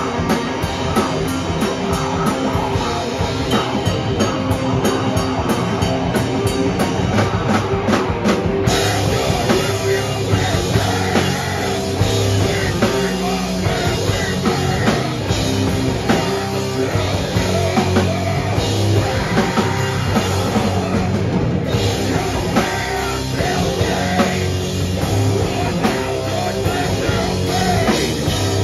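Live heavy rock band playing loud: distorted electric guitars, bass and drum kit, with vocals through the PA. A fast, even high beat stops abruptly about nine seconds in and the song shifts, changing again about two-thirds of the way through.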